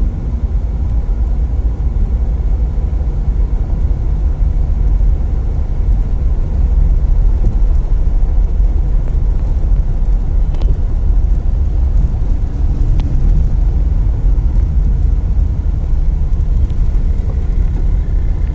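Car driving slowly through flood water, heard from inside the cabin: a steady low rumble of engine and tyres in the water.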